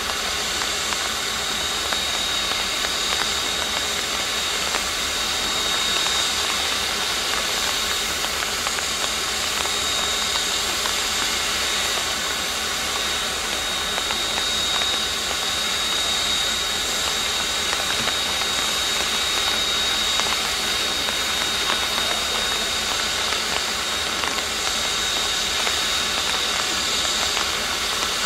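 Steady hiss of steam escaping from a standing DT650-class steam locomotive, with a thin, steady high tone running through it.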